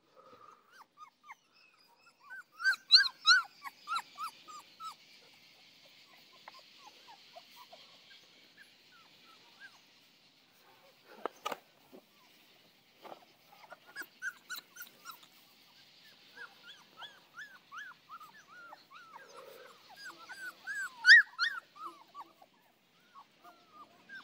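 Saint Bernard puppies whimpering and yipping in short, high-pitched cries that come in clusters, loudest about three seconds in and again near twenty-one seconds, over a steady high hiss.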